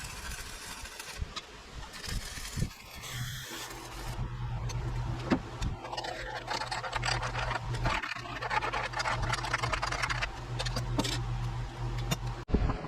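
Arc welding on steel: a steady electric hum with the dense crackle and sputter of the arc, starting about three and a half seconds in and stopping abruptly near the end as the arc is broken.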